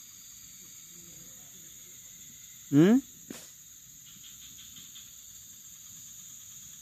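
Insects trilling steadily and high-pitched. About three seconds in, a short, loud rising call cuts in over them, followed by a single click.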